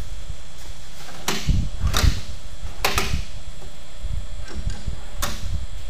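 Footsteps on a concrete floor: about five sharp, spaced steps over a steady low rumble.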